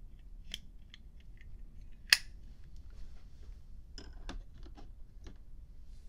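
Zippo Blu butane lighter being handled: a few small metal clicks and one sharp snap about two seconds in, as its flint assembly is fitted back into the case.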